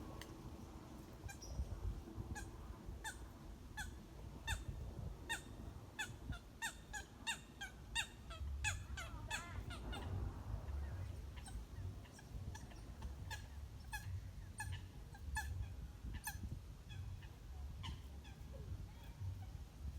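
Birds giving short, hiccup-like calls, each a quick falling note. The calls come in a rapid run from about six to ten seconds in, then more spaced out.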